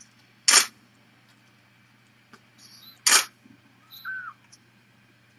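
Two short, sharp bursts of noise about two and a half seconds apart, then a brief high squeak from a young kitten near the end.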